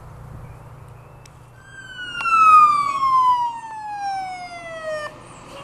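Fire engine siren sweeping steadily down in pitch for about three and a half seconds, then cutting off abruptly.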